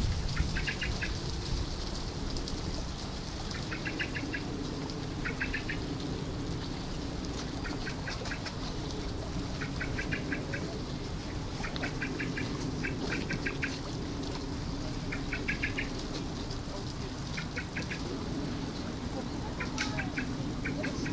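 An animal calling in repeated short rattling trills, each a quick run of about six to eight clicks, every one to two seconds at uneven spacing. A steady low hum runs underneath.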